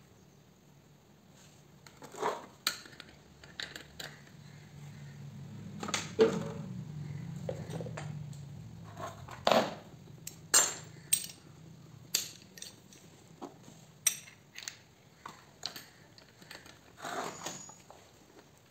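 Metal tools and chainsaw parts clinking and knocking as they are handled and set down, in a string of sharp separate clinks. A low hum swells and fades under them in the first half.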